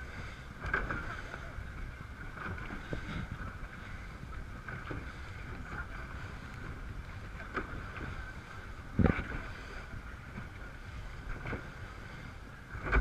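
Power RIB driven by twin Yamaha 350 hp four-stroke V8 outboards underway, the engines running steadily under wind noise on the microphone and water against the hull. There is a thump about nine seconds in and a few lighter knocks.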